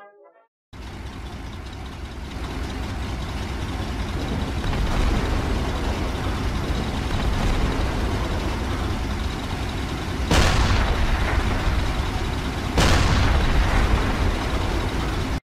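Battle sound effect: a low, steady engine-like noise that grows louder over the first few seconds, with two explosion booms about two and a half seconds apart near the end, then a sudden cut-off.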